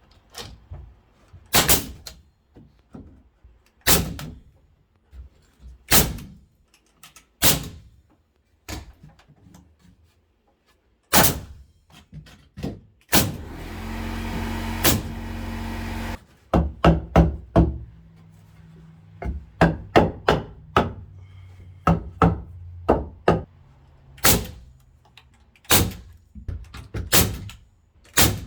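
Nails being driven into wood blocking between floor joists: single sharp strikes every couple of seconds, then quicker runs of strikes in the second half. About halfway through, a tool runs steadily for about three seconds.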